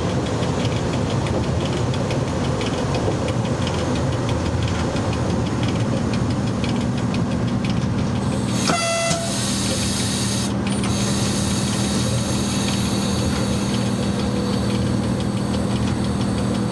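Running noise of an electric train heard from the cab of an FS E.656 electric locomotive: a steady rumble of wheels on rail with a low electrical hum. About nine seconds in, one short horn blast sounds.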